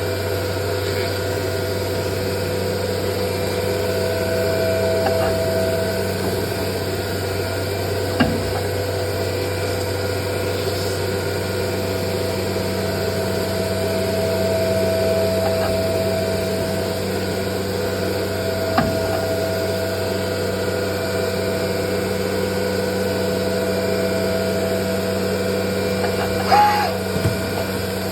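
Biesse CNC machine running as it cuts cardboard: a steady hum with a mid-pitched tone that swells and fades every few seconds as the head moves. There are a few sharp clicks, with the loudest knock near the end.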